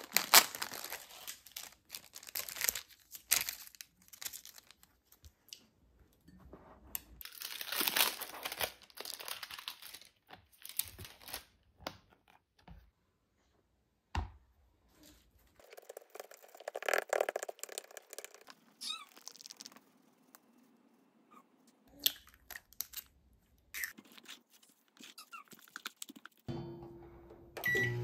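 Plastic packaging crinkling and tearing in short bursts as a medicine packet is opened, followed by scattered knocks and handling of kitchenware. Near the end a microwave oven starts running with a steady hum.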